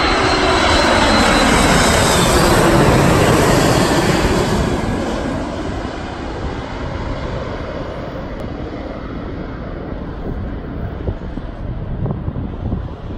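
A twin-engine widebody jet airliner on final approach passing low overhead, its engines loud with a whine that falls in pitch as it goes by. After about five seconds it fades to a quieter, steady rumble as the plane moves away toward the runway.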